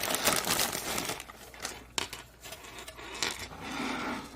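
Plastic toy playset parts being handled and snapped together, with rustling and a sharp plastic click about two seconds in and a softer one a second later.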